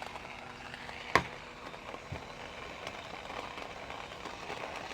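Electric coffee grinder running steadily as it grinds whole coffee beans on its finest setting, with a sharp click about a second in; the motor cuts off at the end.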